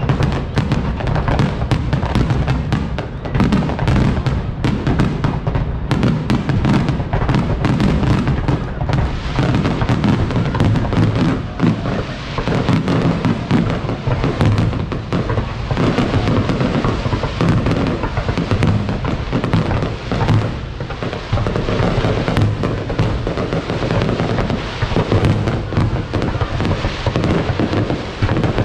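Fireworks display: a continuous rapid barrage of bangs and crackling bursts.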